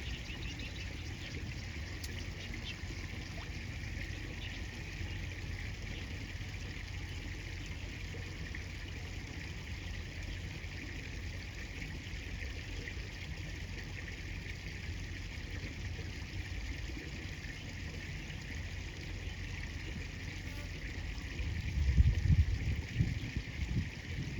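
River water running steadily. A louder, uneven low rumble comes in near the end.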